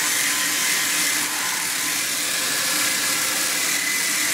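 Flux-cored arc welding (FCAW) on carbon steel plate in the vertical 3G position: the arc burning with a steady hiss and spatter.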